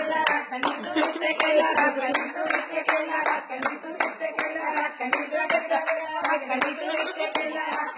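Steady rhythmic hand clapping, about four claps a second, with voices underneath.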